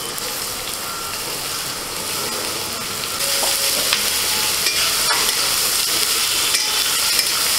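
Chopped onion sizzling in hot mustard oil in a steel kadai, with a flat metal spatula scraping and clinking against the pan as it is stirred. The sizzle grows louder about three seconds in.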